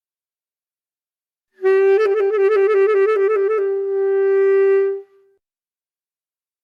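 A saxophone sounding a single note: it starts about a second and a half in, wavers rapidly up and down for a second and a half, then is held steady and stops about three and a half seconds after it began.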